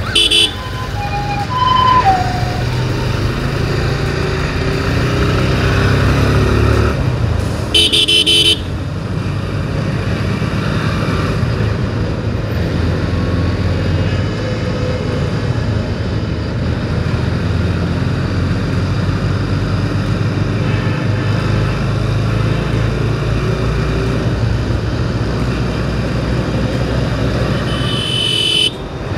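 Motorcycle running at road speed with wind noise on the microphone, and a vehicle horn honking briefly twice, once just after the start and again about eight seconds in.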